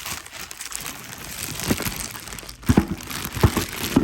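Packaging crinkling and rustling as it is handled, with a few sharp knocks and taps in the second half.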